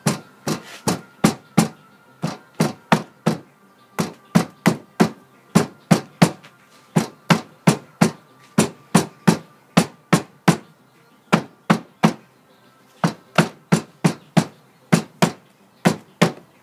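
Moulding sand being rammed tight into a sand-casting mould frame with a hammer: sharp thuds, about three a second, in runs of several strokes with short pauses between.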